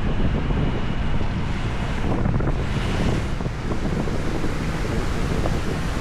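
Wind buffeting the microphone on a moving motorcycle: a steady, dense low rumble without breaks.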